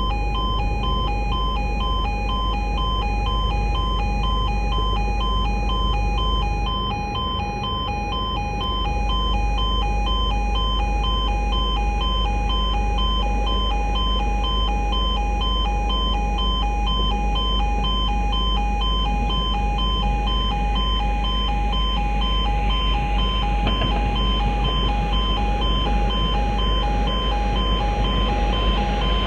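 Railway crossing warning alarm sounding continuously, rapidly pulsing electronic tones over a steady low hum, warning that a train is approaching.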